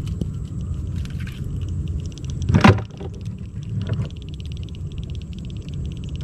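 Handling noise on a small fishing boat as a hooked giant freshwater prawn is lifted aboard on a rod: a steady low rumble, a sharp knock about two and a half seconds in, a softer one a second later, and a fast, fine ticking through the last few seconds.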